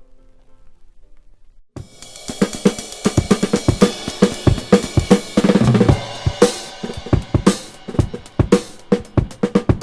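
A vinyl record playing back music: a faint soft keyboard passage fades out, and after a short gap a loud rock track with a busy drum kit (snare, bass drum and crashing cymbals) comes in suddenly about two seconds in.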